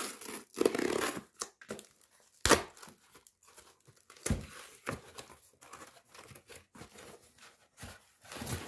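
Cardboard shipping box being torn open by hand: cardboard and tape ripping in a series of short bursts with crinkling, the longest rip about a second in and a sharp snap about two and a half seconds in.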